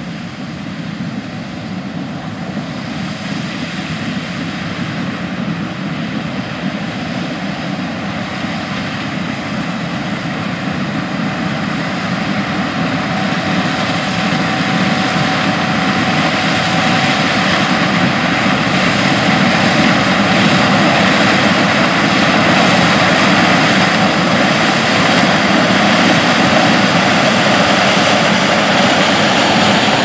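Gleaner S77 class 7 combine harvesting corn, its engine and threshing machinery running steadily and growing louder as it approaches. A thin steady whine joins the noise about halfway through.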